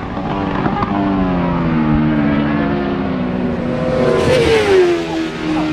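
World Superbike racing motorcycles running at speed on the circuit. The engine pitch slides slowly down, then swells up and falls again about four seconds in as a bike passes and changes speed.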